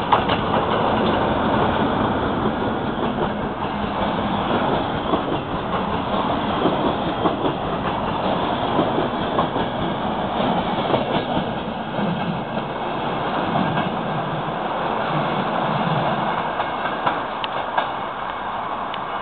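Passenger train hauled by an FS E652 electric locomotive passing close by: the locomotive and then the carriages' wheels rumble along the rails, with scattered clicks over rail joints. The noise slowly fades as the train draws away.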